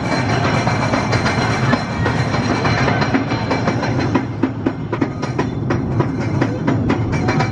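Indiana Jones et le Temple du Péril roller coaster train running along its track: a steady rumble with the cars and wheels rattling and clacking, the clacks coming thicker from about four seconds in.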